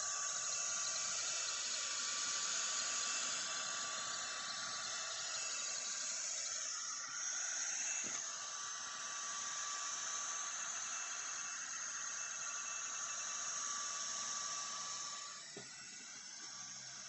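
Sculpfun S30 Pro diode laser engraver running a plywood engraving job: a steady hiss of air-assist air and fans with a thin steady whine under it. The noise drops, with a click, about fifteen seconds in.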